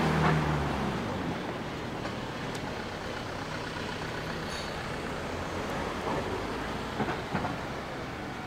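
City street traffic: a car passing close, its engine hum fading within the first second, then a steady wash of traffic noise, with two short knocks about seven seconds in.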